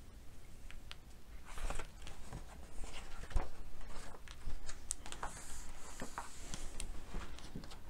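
Pages of a hardcover picture book being turned and smoothed flat by hand: paper rustling and brushing, with scattered light taps and clicks.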